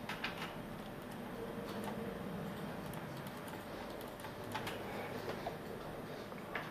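Faint, scattered computer keyboard keystrokes, a few separate clicks over a low steady background hum.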